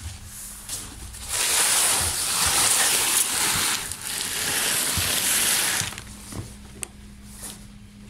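Large cardboard box holding a MAXZEN twin-tub washing machine being dragged across a wooden floor: a long scraping slide, a brief pause, then a second slide, with a few low knocks.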